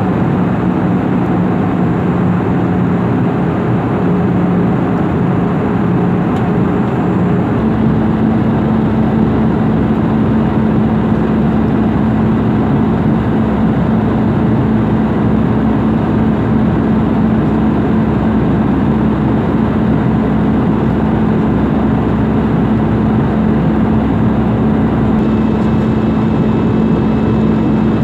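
Cabin noise of an Airbus A320-family jet airliner in flight, heard at a window seat beside the engine: a steady roar with a hum that steps up in pitch about seven seconds in.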